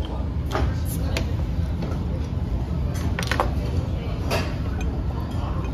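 Restaurant dining sounds: a steady low hum of the room with several sharp clinks of tableware, the loudest a little past the middle.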